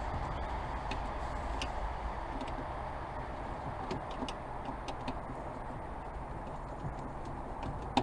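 Scattered small faint clicks and taps of hand work fastening a wire to a battery terminal, over a steady background noise.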